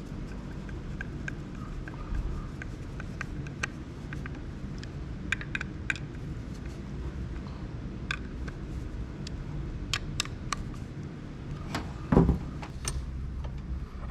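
Scattered light clicks and metallic taps of small hand tools and mounting hardware being handled, with one louder knock about twelve seconds in, over a low steady hum.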